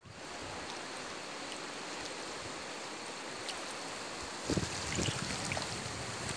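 Steady rushing of a wide mountain river flowing over a pebble bed. From about four and a half seconds in, low buffeting on the microphone comes in gusts.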